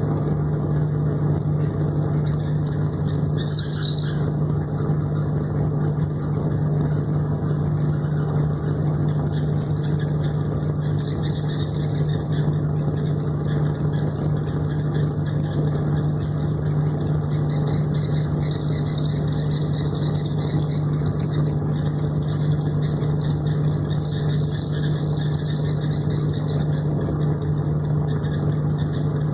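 A steady low hum with one constant tone over a rumble, like a motor running, with a few short spells of hiss on top.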